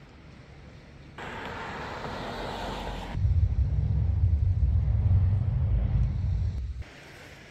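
Outdoor road-side ambience: a hiss from about a second in, then a louder low rumble from about three seconds in that cuts off abruptly near the end.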